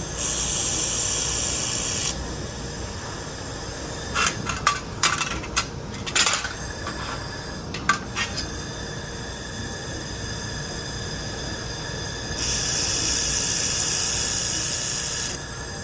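IPG LightWELD handheld laser welder firing in continuous-wave mode on thin stainless steel in two short runs: a steady high hiss that switches on and off abruptly, about two seconds at the start and about three seconds near the end. In between come a few sharp clicks and metallic clinks.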